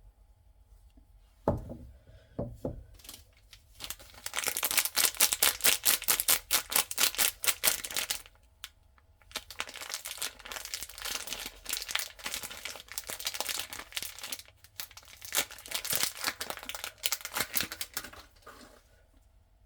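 The wrapper of a packaged bar of soap being torn open and crinkled, in three long stretches of rapid crackling. A soft thump comes about a second and a half in, followed by a few light knocks.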